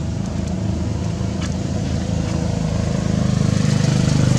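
A small engine running steadily with an even, fast pulsing, growing louder about three seconds in.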